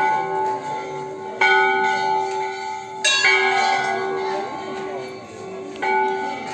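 Hanging brass temple bells struck by hand again and again, about four strikes a second or two apart, each ringing on and overlapping the last.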